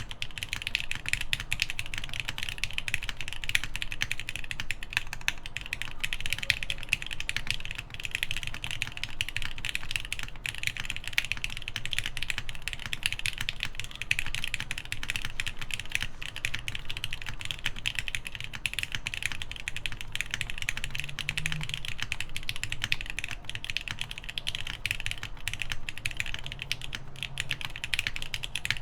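Continuous fast typing on a mechanical keyboard: an NRD Kaze with an FR4 half plate, lubed Gateron Ink linear switches and GMK keycaps. The keystrokes run together in a dense, even stream of clicks.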